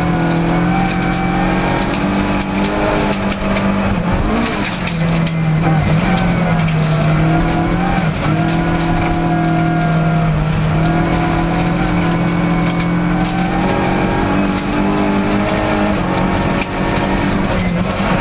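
Opel rally car's engine heard from inside the cabin, running hard on a gravel stage, its tone stepping down and climbing again several times with gear changes and throttle, over a constant rush of tyre and gravel noise.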